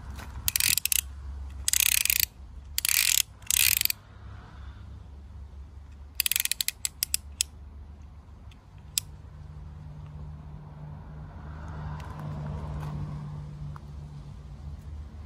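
Snap-off utility knife's blade slider ratcheting in and out: four quick runs of clicks in the first four seconds, then a shorter run of sharp separate clicks about six seconds in and a single click near nine seconds.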